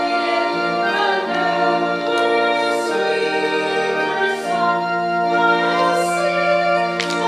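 A hymn sung by a group of voices with instrumental accompaniment, moving through held chords.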